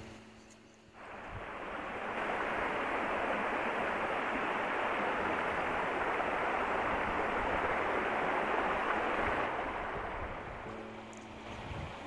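Water rushing steadily, starting abruptly about a second in and fading away near the end.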